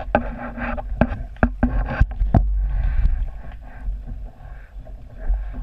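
Sharp knocks and clunks from a fishing kayak, about six in the first two and a half seconds, over a steady low rumble; softer swishing follows.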